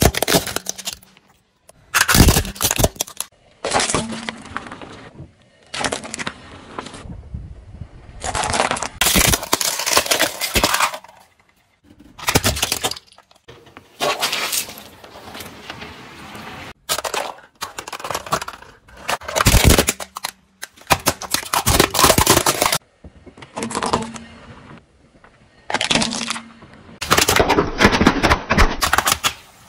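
Car tyres rolling over and crushing a run of objects (toy cars, a melon, small water balloons), heard as a dozen or so separate cracking and crunching bursts of a second or two each, one after another with abrupt breaks between them.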